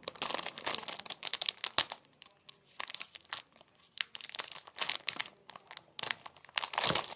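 Packaging of a slime tub crinkling and tearing as it is opened by hand, in irregular bursts of crackles with short pauses.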